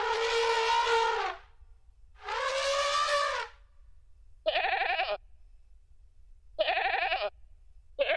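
Built-in sound effects of a Casio CT-X9000 keyboard played one key at a time: two long, steady pitched tones, then a sheep-bleat sample sounding three times, each call short and wavering.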